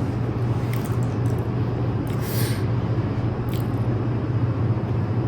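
Steady low hum under a constant background noise, with a few faint brief rustles.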